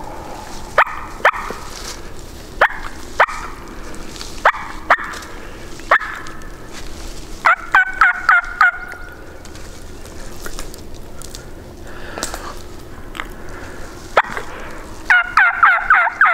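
Hen turkey sounds made on a mouth call: sharp single and paired clucks and cutts for the first few seconds, then two quick runs of rasping yelps, one in the middle and one near the end. The hunter is calling to a roosted gobbler to bring him in.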